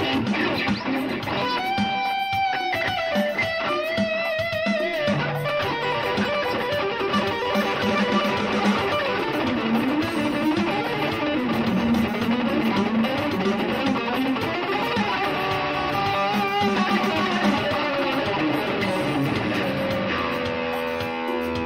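Electric guitar played through an amplifier: a single-note lead line with bent, wavering sustained notes over lower ringing notes, settling into a held, ringing chord near the end.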